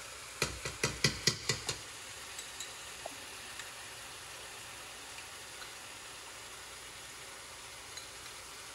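A spoon clinks against the cooking pot about seven times in quick succession over a little more than a second, as seasoning is spooned into the broth. After that the pot sizzles faintly and steadily, with an odd small tick.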